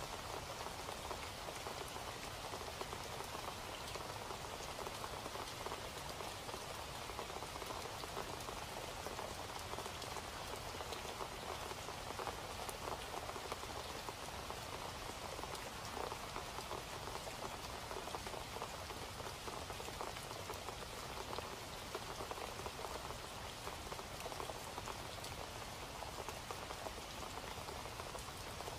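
Steady rain falling, a constant even hiss of many small drop impacts that does not change.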